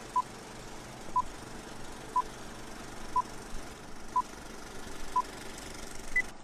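Old-film leader countdown sound effect: six short beeps at about one a second, then a single higher beep near the end, over the steady whir of a film projector.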